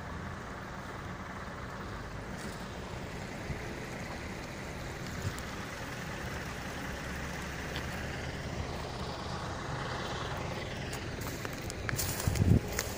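Steady rush of a small, shallow river flowing over its bed, with a brief louder bump and rustle near the end.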